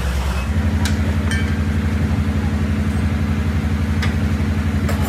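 A truck engine running steadily. Its note changes about half a second in, and a few sharp clicks sound over it.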